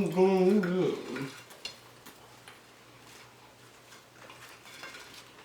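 Faint, scattered clicks of cutlery against a plate during a meal, after a short bit of speech at the start.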